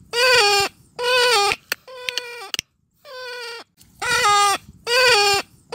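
Watercock calling: about six loud, wailing, pitched calls of half a second each, bending slightly in pitch, the same run of calls repeating about four seconds apart.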